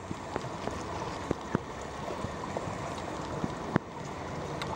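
Several sharp clicks from a Eurasian collared dove pecking at a piece of food on ceramic floor tiles, the loudest near the end, over a steady rushing background noise.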